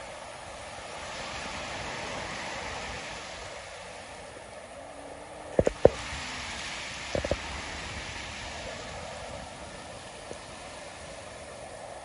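Ocean surf breaking and washing over a rocky shore: a steady rush that swells and fades. A little past halfway, two quick clusters of sharp clicks or knocks, about a second and a half apart, stand out above it.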